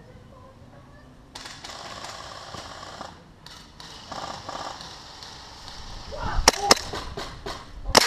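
Airsoft guns firing: a rapid rattling burst of automatic fire about a second in, another spell of it a little later, then several sharp single cracks in the last two seconds.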